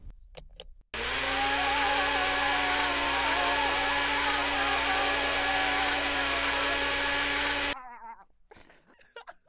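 Buttons clicked on an Oster blender, then its motor starts abruptly and runs loud and steady with a humming whine for about seven seconds before cutting off suddenly.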